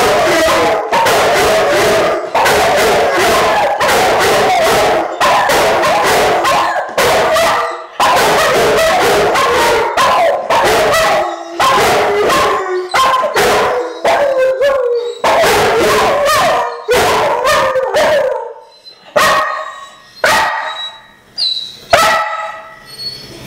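Several dogs howling together in a wavering chorus, a yellow Labrador retriever among them. Over the last few seconds the howling thins to a few short, separate calls and dies away.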